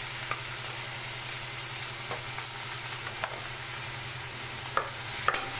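Boiled mixed whole pulses (rajma, chana, kulthi, black soybean, urad) sizzling steadily as they are lightly fried with cumin in a hot kadhai, with a few light clicks of stirring.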